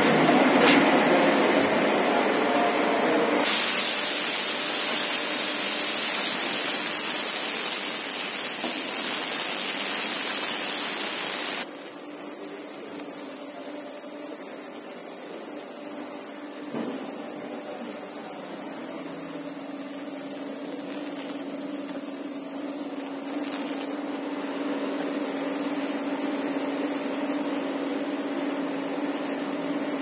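Industrial parts-washing machine running: wash spray jets hissing steadily, louder from about three seconds in, then dropping sharply about twelve seconds in to a quieter hiss over a steady machine hum.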